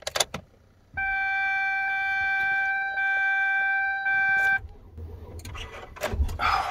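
Ignition key clicks, then a steady electronic warning chime from the Suburban's dash, starting about a second in and held for about three and a half seconds before cutting off. After it comes a low rumble of the engine cranking over on a cold-drained battery boosted by a portable power station, nearly catching near the end.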